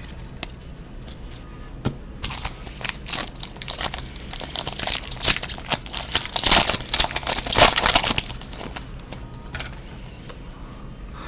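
Foil trading-card pack wrapper being crinkled and torn open by hand: irregular crackling that builds up about two seconds in, is densest and loudest in the middle, and thins out near the end.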